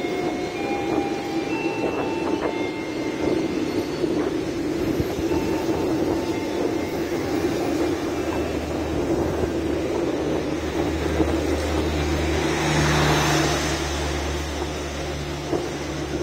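KAI Commuter electric commuter train running past along the platform, its wheels rumbling steadily on the rails. A few short high squeals sound in the first seconds. A low hum builds from about halfway, and a hissing swell peaks near the end.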